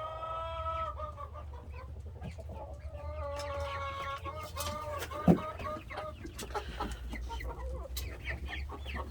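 A flock of chickens clucking, with drawn-out calls at the start and again around three to four seconds in, then many quick short clucks. A single sharp thump about five seconds in is the loudest sound.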